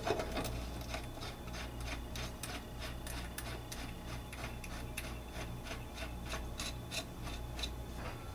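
Ratchet socket wrench clicking at about three clicks a second, running the blade bolt onto the mower's blade adapter.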